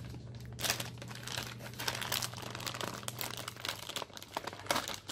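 A clear plastic bag holding a wiring harness crinkling in irregular rustles as it is handled by hand.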